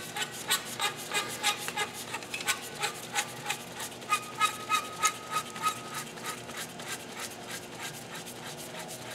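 Steel top sub being spun by hand onto the greased threads of a JDC slickline pulling tool: a rhythmic metallic scraping and clicking, about two or three strokes a second, growing softer after about six seconds.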